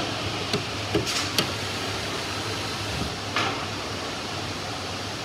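Steady workshop background noise with a low hum, and a few short scraping sounds as the wooden baseboard is shifted against the drawer: a couple about a second in, and another about three and a half seconds in.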